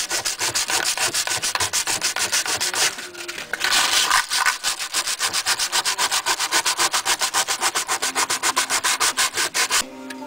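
Sandpaper rubbing on a steel hacksaw blade half in quick back-and-forth strokes, about five a second, with a short pause about three seconds in and an abrupt stop near the end.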